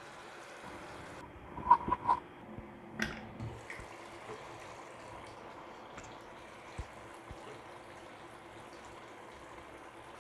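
Potato and eggplant curry simmering quietly in an uncovered nonstick frying pan. A few sharp knocks on the pan come about two to three seconds in, two of them ringing briefly.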